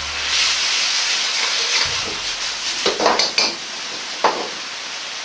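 Sauce sizzling in a wok as a water-dissolved potato-starch slurry is stirred in with a metal ladle, with a few sharp clacks of the ladle against the wok about three seconds in and again just after four.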